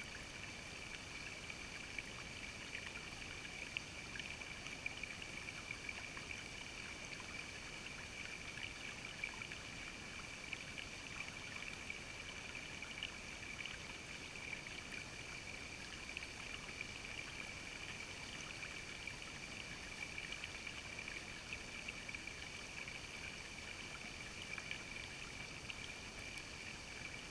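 Shallow creek water trickling over rocks, with a steady high-pitched tone running underneath.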